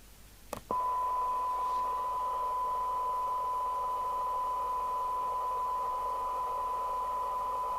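Demodulated audio from a Radiomobile CB202 FM CB receiver: a steady 1 kHz test tone over hiss, coming on after a click about half a second in. It is a weak test signal near the receiver's sensitivity limit during a SINAD measurement.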